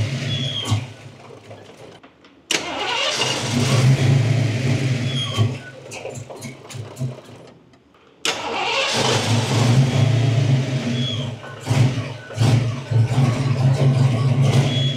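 Foxbody Mustang's fuel-injected V8 catching and running a few seconds, then dying away, twice over, with two short bursts of running near the end: the engine won't hold an idle after a throttle body swap, which the owner suspects is a vacuum leak.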